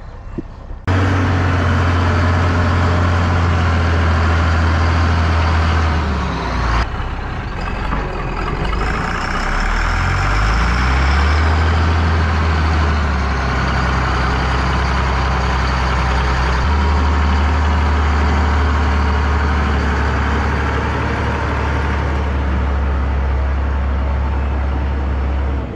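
Allis-Chalmers 7045 tractor's six-cylinder diesel engine running loud and steady while rolling out a gravel pad with a land roller; about seven to eleven seconds in the engine speed dips and climbs back up, then settles again.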